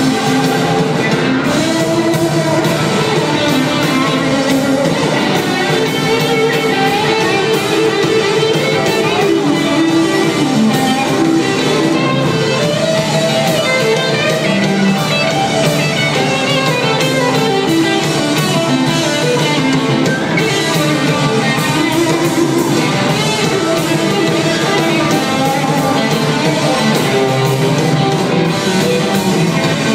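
Live rock band with electric guitar and keyboard playing an instrumental solo, loud and steady through a concert PA.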